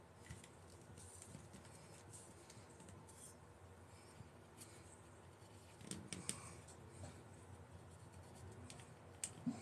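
Near silence: room tone with faint scattered ticks and rustles, a few slightly louder about six seconds in and near the end.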